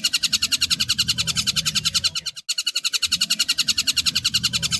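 Recorded calls of a tengkek buto kingfisher: a fast, even run of sharp chattering notes, more than ten a second, that breaks off for a moment about halfway through and then starts again.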